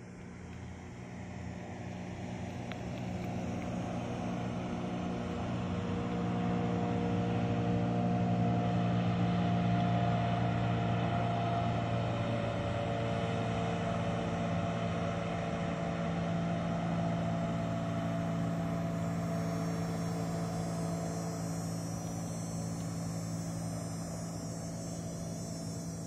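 Small motorboat's engine running steadily as it passes on open water, growing louder to a peak and then slowly fading.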